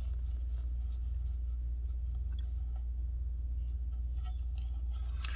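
A steady low hum, with faint light scrapes and clicks of a plastic smart-clock housing being turned over in the hands.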